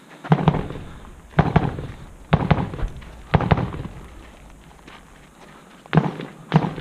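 Rifle shots from other shooters on the range, about a dozen sharp reports in pairs and small clusters, each with a short echo.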